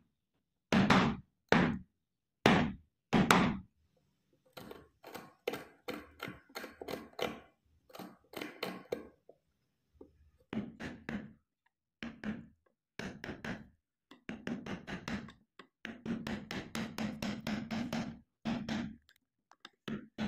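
Wood chisel struck repeatedly into a block of babool wood, chopping out the blade opening of a hand plane. It starts with four heavy, evenly spaced blows, then runs of lighter, quicker taps with short pauses.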